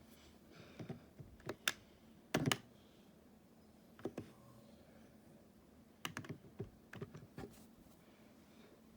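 Handling of a Korasho character alarm clock: scattered sharp clicks and light knocks in about six short clusters, the loudest a double knock about two and a half seconds in.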